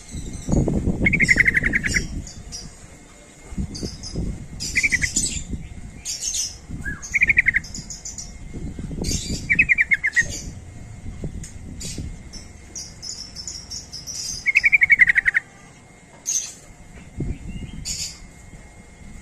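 Sooty-headed bulbul singing short, bubbly warbled phrases, about five in all, with pauses of a couple of seconds between them. Thinner, higher chirps from other birds are mixed in.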